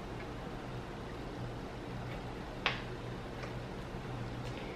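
Quiet drinking from a plastic water bottle, with a steady low hum underneath and one sharp click about two and a half seconds in.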